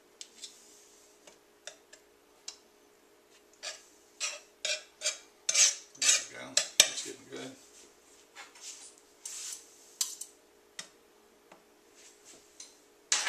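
Butter knife scraping and tapping on an electric griddle while pats of butter are spread across it: a run of short scrapes and clicks, busiest in the middle, over a faint steady hum.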